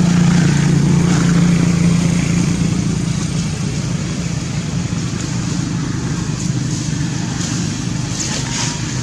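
An engine running with a steady low hum that eases off after about three seconds, over continuous background noise.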